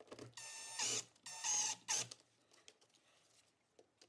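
Makita cordless driver whirring in short bursts as it drives screws into a thermostat mounting bracket: a lighter run at the start, then two loud runs in the first two seconds, then it stops.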